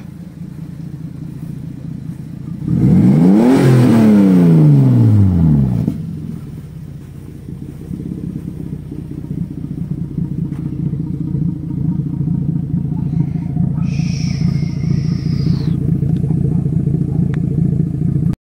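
Twin-turbo 2JZ-GTE VVT-i inline-six from a Toyota Aristo, swapped into a Lexus IS300, idling steadily. About three seconds in it is revved once, the pitch rising and then falling back to idle over about three seconds. The sound cuts off abruptly just before the end.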